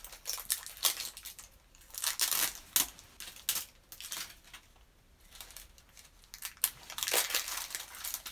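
Plastic wrapping crinkling and tearing as it is peeled off an LOL Surprise ball, in irregular bursts, quieter about halfway through.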